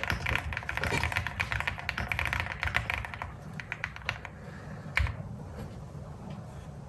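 Fast typing on a Crush 80 aluminium-cased mechanical keyboard: rapid keystrokes for about three seconds, then a few scattered presses and one heavier stroke about five seconds in before the typing stops.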